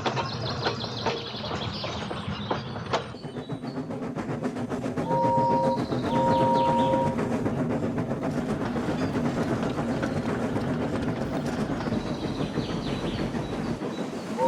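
Steam locomotive running along with a steady clatter of wheels on rail joints. About five seconds in, its whistle sounds twice: a short toot, then a longer one.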